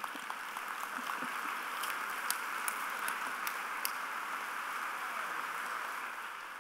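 Audience applauding in a large hall, a dense patter of clapping with a few sharper claps standing out, easing off near the end.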